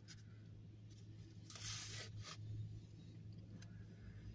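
Faint rustling and scraping of food wrapping being handled, loudest about two seconds in, over a low steady hum.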